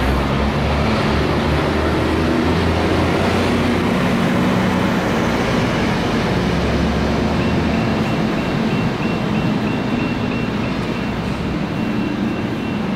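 Kaohsiung light rail tram (CAF Urbos 3) leaving the station and running close past, with a steady rumble and a low hum. From about halfway through, a high beep repeats quickly, about three times a second.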